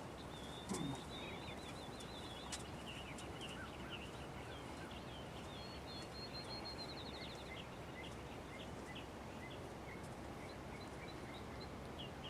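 Small birds chirping and trilling over a steady outdoor hiss, with a brief low falling sound about a second in.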